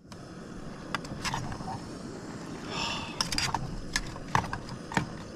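Spoon stirring yabbies in a small camping pot on a portable gas cooker, with several light clinks and scrapes against the pot over a steady hiss.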